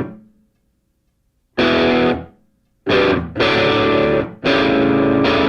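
Background music: distorted electric guitar chords played in short stop-start stabs, with brief silent gaps between them.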